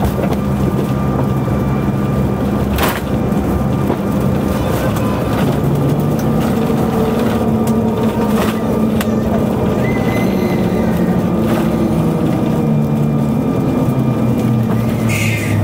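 Airliner cabin noise of a CRJ-900 landing and rolling out on the runway, heard beside the wing: a loud, steady rumble from the rear-mounted GE CF34 turbofans and the wheels, with the engine tones shifting in pitch partway through. A sharp knock comes about three seconds in.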